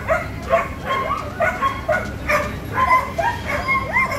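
Several collies barking and yipping over one another: a quick, continuous run of short, high barks, several a second, some rising into yips.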